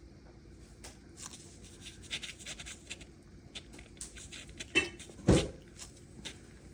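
Cat moving about inside a cardboard box: scattered scratchy rustles and scrapes on the cardboard, with two louder bumps in quick succession about five seconds in.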